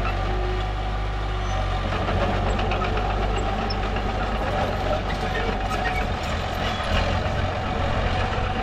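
Komatsu mini bulldozer's diesel engine running steadily at work, with scattered light clicks and rattles over the engine.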